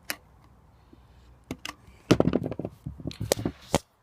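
A few sharp clicks, then a rapid run of loud knocks and clatters from a tool prying and wedging at the Emerson Evergrind E202 disposer's housing, stopping abruptly near the end.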